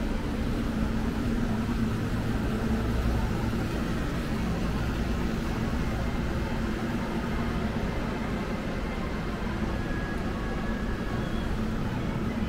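Steady city street noise at night: a low rumble of vehicle traffic with a constant hum underneath.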